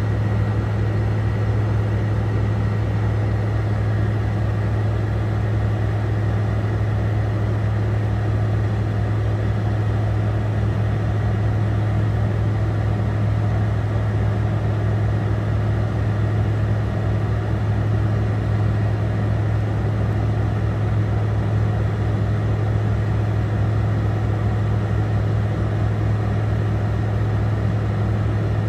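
Steady low drone of an idling diesel engine, heard from inside a truck cab.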